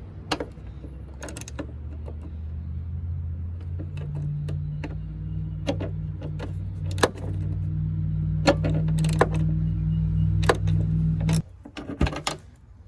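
A steady low machine hum that grows louder and then cuts off suddenly near the end. Sharp clicks and knocks of metal parts being handled come throughout.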